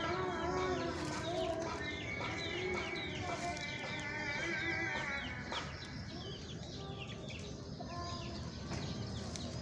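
Backyard poultry calling: a run of short, high, downward peeps, several a second, over lower drawn-out calls, thinning out in the last few seconds.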